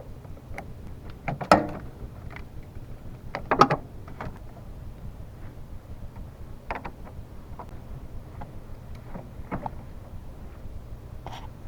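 Half-inch wrench loosening the nut on a car battery's negative terminal clamp: scattered metallic clicks and knocks, the two loudest about a second and a half and three and a half seconds in.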